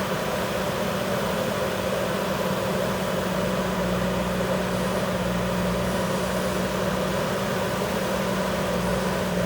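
Backhoe loader's diesel engine running at a steady speed, a constant hum that holds the same pitch throughout.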